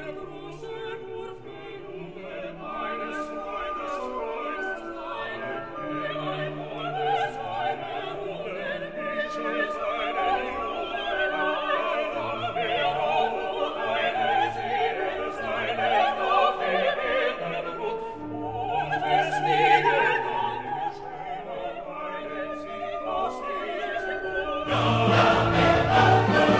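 Orchestral classical music with operatic singing, wavering held notes over sustained strings; it swells louder near the end.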